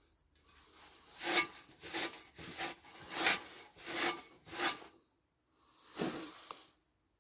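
Hand rubbing or scrubbing on the Raleigh Chopper's metal parts, in rhythmic back-and-forth rasping strokes. There are about six strokes roughly half a second apart, then a pause and one more stroke near the end.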